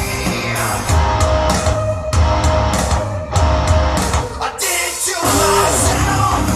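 A rock/metal song with singing, electric guitar and drum kit, played back through a hi-fi bookshelf speaker and recorded by a microphone in the room. The bass and drums drop out for about half a second a little after the middle, then the full band comes back in.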